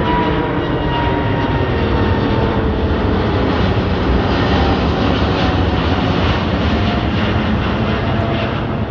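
Airbus A350's two Rolls-Royce Trent XWB turbofans at climb power just after takeoff: a loud, steady jet noise passing overhead. Its whining tones slide slowly down in pitch as the airliner moves away.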